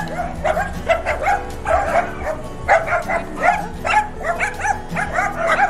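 Small dog yapping over and over in quick bursts of high, sharp barks, several a second.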